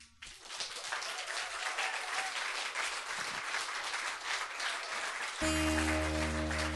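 Audience applauding at the end of a song. About five seconds in, an acoustic guitar chord starts ringing out under the clapping.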